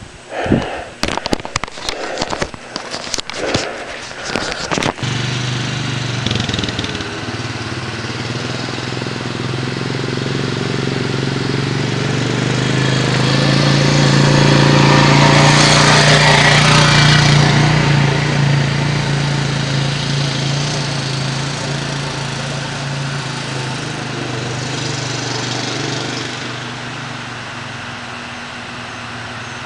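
Knocks and rustling of a camera being handled for about five seconds, then cut off suddenly. Then an ATV engine runs steadily, growing louder to a peak about halfway through and easing off again.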